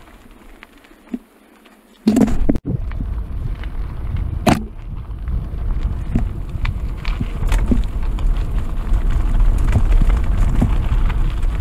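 Trek Roscoe 6 mountain bike descending a dirt singletrack: a steady rumble of tyres rolling over dirt, with frequent small rattles and clicks from the bike and wind on the microphone. The first two seconds are quiet, then the riding noise cuts in suddenly, with one sharp clack a couple of seconds later.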